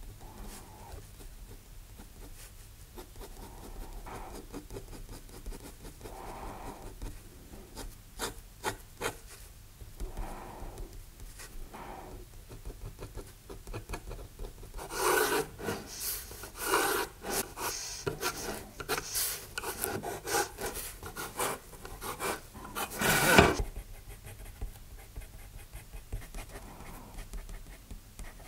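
Steel G-pen dip nib scratching across paper in short inking strokes. About halfway through comes a run of louder, quicker strokes, the loudest a few seconds before the end.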